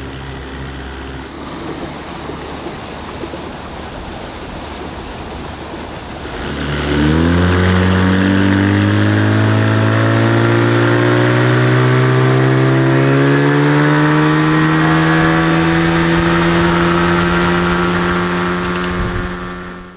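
Evinrude 50 outboard motor running a boat under way. For the first six seconds a rush of wind and water covers it; then it throttles up, louder, its pitch climbing for several seconds before holding steady at speed.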